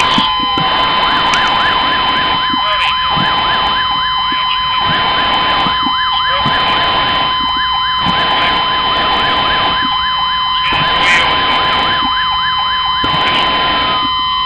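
A siren in a fast yelping warble, over a steady high-pitched tone and a pulsing lower layer that dips about every two seconds.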